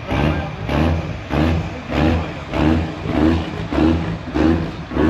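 Tractor-pull engine running unevenly, its note swelling and dropping about every 0.6 seconds in a steady, lumpy rhythm.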